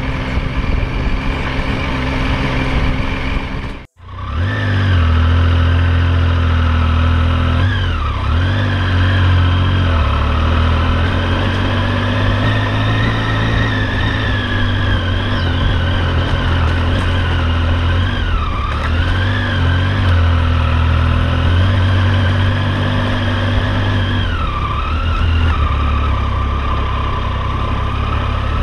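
Triumph Tiger 800 XC's three-cylinder engine running under way with steady road noise, its pitch dipping and climbing back three times as the revs change. The sound cuts out briefly about four seconds in.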